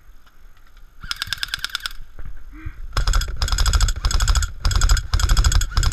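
Airsoft rifle firing on full auto, a fast rattle of shots: one short burst about a second in, then several longer, louder bursts in quick succession from about three seconds on.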